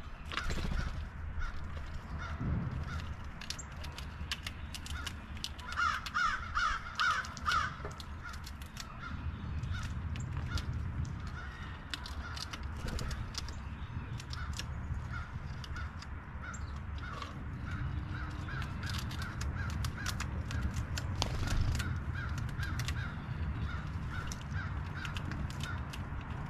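Crows cawing repeatedly, with a run of four or five louder caws about six seconds in, over a steady low rumble and scattered light ticks.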